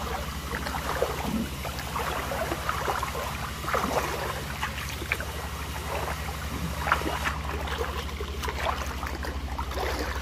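Shallow ditch water splashing and sloshing in short, irregular bursts as someone wades through it and gropes along the bottom with bare hands, over a steady low rumble.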